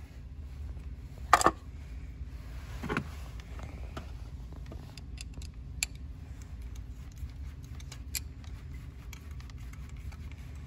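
Hand tools clinking as a hose clamp is worked onto a fuel line: one sharp metallic clank about a second and a half in, then scattered light clicks, over a steady low hum.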